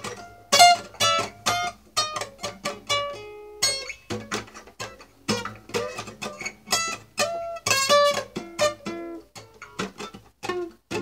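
Acoustic guitar played solo and fingerpicked: single plucked notes and small chords in an unhurried melodic line, a few notes a second with short pauses between phrases.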